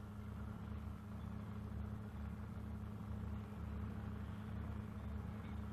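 Steady low hum with faint hiss and no distinct events: the background noise of an old film soundtrack.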